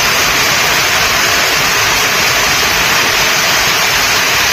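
Heavy rain pouring down in a loud, steady hiss.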